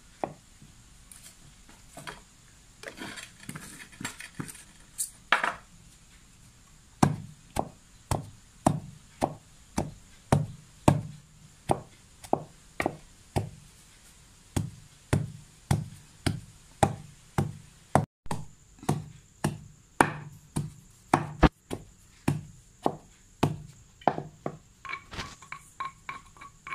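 Wooden pestle pounding chopped manioc leaves and salt in a mortar: a few light, irregular knocks at first, then dull, regular thuds about one and a half times a second.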